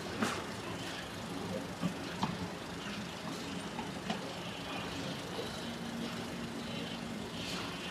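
Steady hum of a running generator, with a few sharp knocks and clatters of a tent being taken apart, most of them in the first four seconds.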